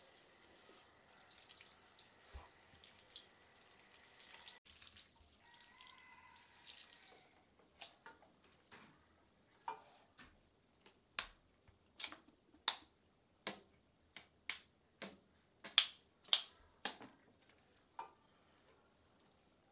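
Faint running water at a shampoo basin, then, from about halfway through, a run of sharp snaps at roughly two a second, loudest near the end.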